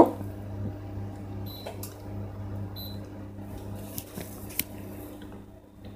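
Induction hob heating a saucepan of butter, its steady low electrical hum picked up by the microphone. Two short high beeps come about 1.5 and 3 seconds in, with a few light clicks.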